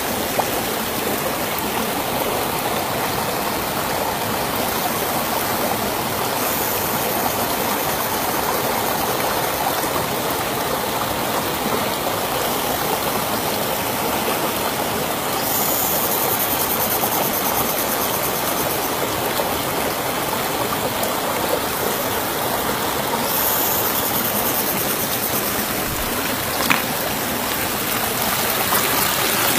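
Steady rush of flowing river water, with one sharp tap near the end.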